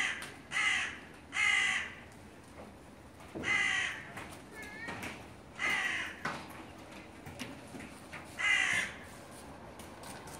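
Crow cawing: six loud, harsh caws at irregular intervals of one to three seconds.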